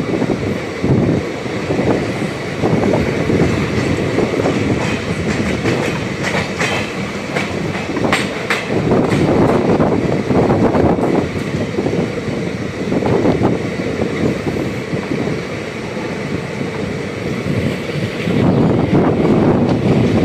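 Passenger train coach running along the track, heard at an open coach window, with its wheels clattering over the rails.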